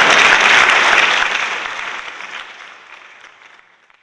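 Applause, steady at first and then fading out over about three seconds.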